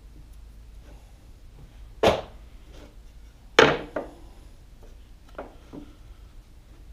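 Wooden boards being set down and knocked against each other on a miter saw's table: two sharp wooden clacks about a second and a half apart, then a few lighter knocks as the boards are lined up.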